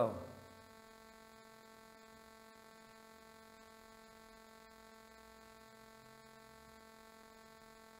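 Faint, steady electrical hum with a buzzy stack of even overtones, unchanging throughout; the light brush strokes on the canvas are not heard over it.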